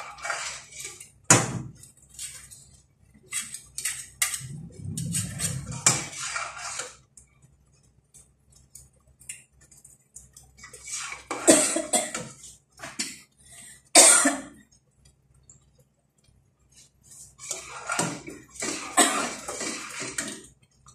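A metal ladle and spatula scraping and clinking against the inside of a stainless steel pot as a thickening milk-and-sugar mixture is stirred, in several bursts of stirring with short pauses between.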